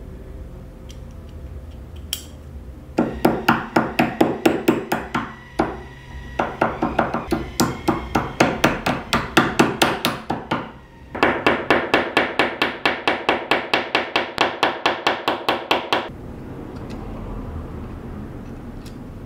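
Small hammer tapping a brass block against a steel lock plate: quick, even metallic taps about four a second, in three runs with short pauses between them.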